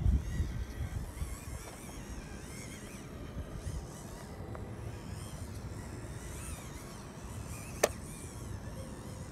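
Wind rumbling on the microphone, strongest at the start, with the faint, wavering whine of a 1:18 scale RC crawler's small electric motor and gears as it climbs rock. A single sharp click about eight seconds in.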